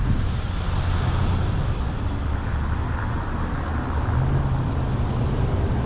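A car on the move: a steady low engine and road rumble.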